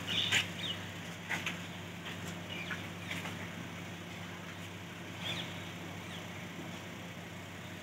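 Steady low machine hum, with a few short high chirps over it in the first five seconds.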